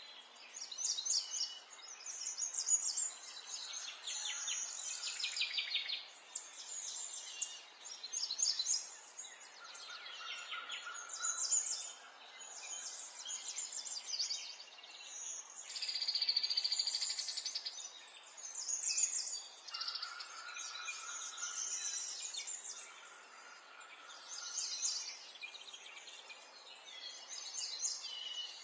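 Several songbirds singing and calling over one another in short high phrases and rapid trills, with an occasional held whistled note.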